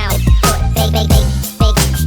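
Background hip-hop music with rapped vocals over a heavy bass beat.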